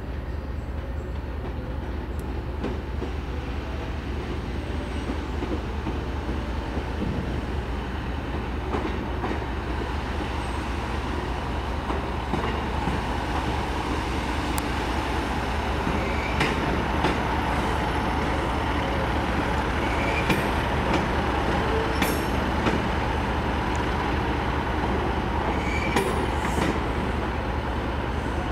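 A train moving slowly through the station, a steady low rumble that gradually grows louder, with irregular sharp clicks from the wheels over the rail joints and a few brief faint wheel squeals in the second half.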